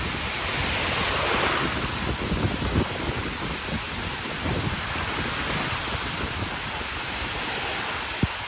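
Monsoon storm wind and rain: a steady rushing hiss with gusts buffeting the microphone, swelling about a second in, and a sharp knock near the end.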